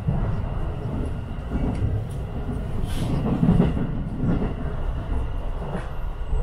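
JR West Tokaido Line electric train running, heard from inside the passenger car: a steady low rumble with a few scattered clicks from the wheels on the rails.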